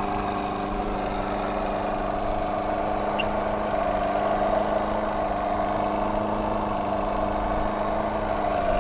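Martin Baylis twin-cylinder model marine steam engine running steadily on about 30 psi of steam, with an even hum that does not change in speed.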